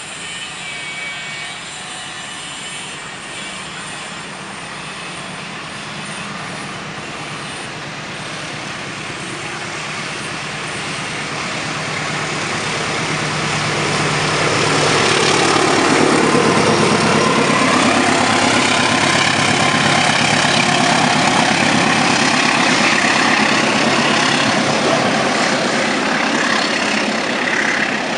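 A train approaching and passing close by. The rumble of the engine and the wheels on the rails builds for about fifteen seconds, then stays loud as the train goes past.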